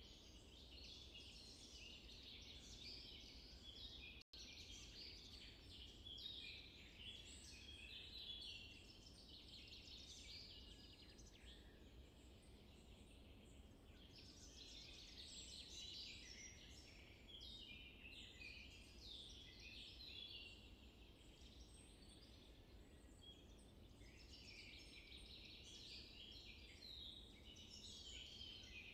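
Faint chorus of many small birds chirping and trilling without a break, over a low steady rumble. The sound cuts out for an instant about four seconds in.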